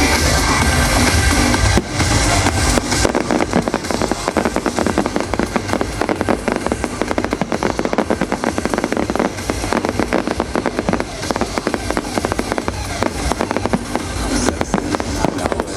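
A rapid barrage of firework bangs and crackles, many per second, over music. The barrage starts about two seconds in and eases off near the end.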